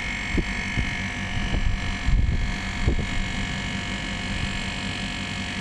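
A 2 PK split air conditioner's outdoor unit running, its compressor and condenser fan giving a steady mechanical hum with several constant tones. A few faint knocks come from the clamp meter being handled against the unit.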